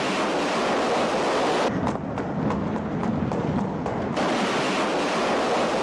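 A loud, steady rushing roar like a gust of wind or a passing rush of air, starting and stopping abruptly. In the middle it thins a little and several short sharp ticks come through.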